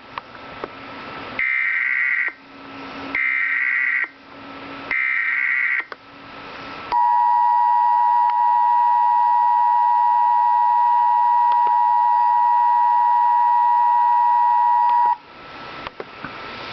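Emergency Alert System header: three short bursts of SAME data tones, each about a second long with hiss in the gaps, then the steady two-tone attention signal for about eight seconds, cutting off abruptly. Together they mark the start of an emergency alert broadcast.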